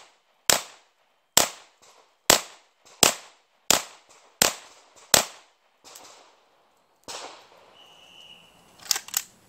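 Chiappa PAK-9 9mm pistol with a linear compensator firing seven single shots in slow, steady succession, a little under a second apart. After a pause come a few fainter knocks and two sharp metallic clicks near the end as the action is handled.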